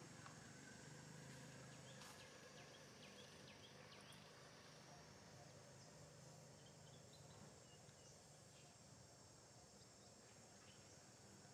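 Faint outdoor ambience: a steady insect drone with a few soft bird chirps and a single click about two seconds in.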